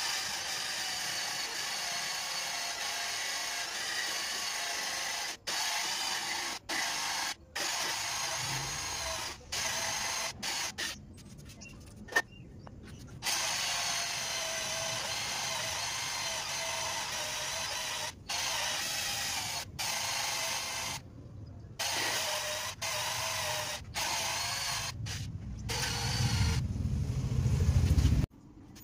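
Cordless drill running into a piece of wood in long bursts, its motor whine stopping and starting abruptly on the trigger. In the last few seconds it runs louder and deeper before cutting off.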